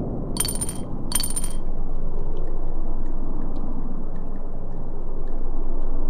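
Title-sequence sound design: a steady low, watery rushing ambience. Near the start come two short, bright chime-like shimmers, about two-thirds of a second apart.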